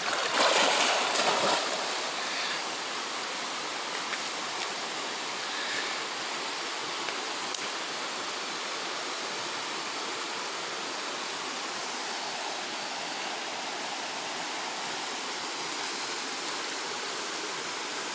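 Running water of a stream into a rocky pool, an even, steady rush. Louder water splashing close by in the first two seconds.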